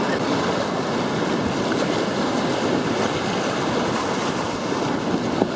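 Whitewater river rapids rushing and churning around a raft, a steady loud wash of water noise.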